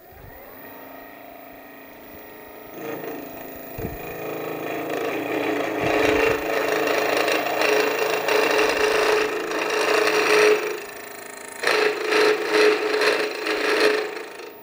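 A 12 mm carbide end mill in a home-made shaper milling head cutting a 2 mm deep pass in mild steel. The spindle runs lightly at first, then the cut bites in with a loud, steady ringing note and grinding. It breaks off briefly about eleven seconds in, resumes, and stops near the end. The owner judges this cut a little too much for the head.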